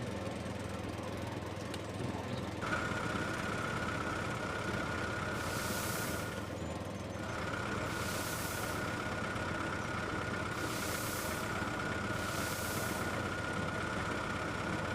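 A small motor running with a steady whine that starts a few seconds in and drops out briefly near the middle. Short hissing bursts come every two to three seconds over it.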